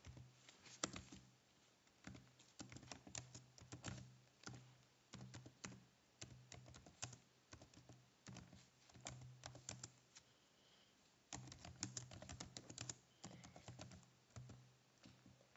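Faint computer keyboard typing: quick runs of key clicks with short pauses between words, and a longer pause a little after ten seconds.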